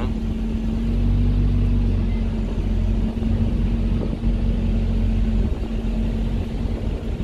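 Steady low mechanical rumble with a constant hum, from a large engine running close by; it eases slightly about five and a half seconds in.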